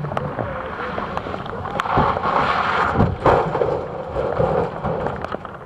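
Rally car on a stage, its engine under a rush of tyre and road noise that swells in the middle.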